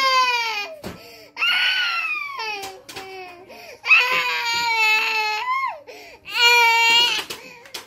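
A baby crying hard: four long, high wailing cries, broken by short gasps for breath.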